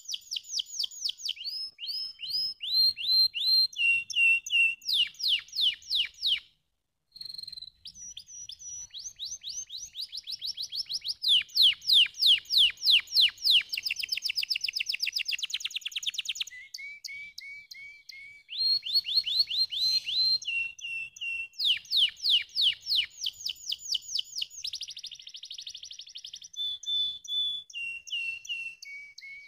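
Domestic canary singing a long song of rapid trills, each a fast run of repeated notes at one pitch before it switches to a new run higher or lower, with one short break about six and a half seconds in.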